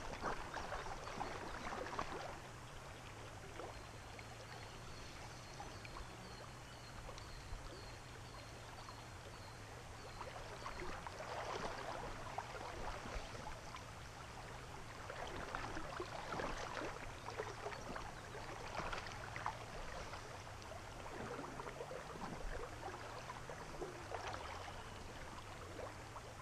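Shallow creek water running over a gravel riffle, faint, with louder splashes of water a few times.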